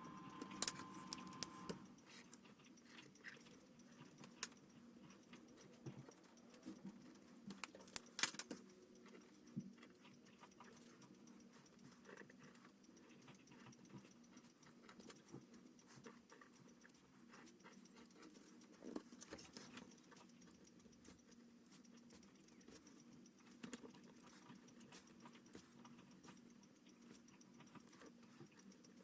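Faint scratching and tapping of pens on drawing paper, many small irregular clicks, with a sharper click about eight seconds in. A faint steady tone sounds for the first two seconds.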